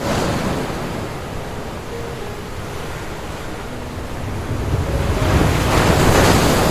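Surf on a sandy beach: waves washing in as a steady rush that swells to a louder breaking wave about five seconds in. Faint music sits underneath.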